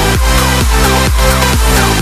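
Electronic dance music with a steady beat, about two beats a second.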